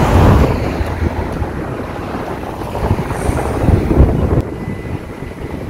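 Wind buffeting the phone's microphone in an irregular low rumble, over the hum of street traffic. It is strongest at the start, gusts again about four seconds in, then eases off.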